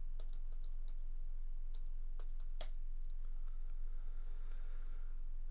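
Light, scattered clicks of a computer mouse and keyboard, about a dozen in the first three seconds, over a steady low electrical hum.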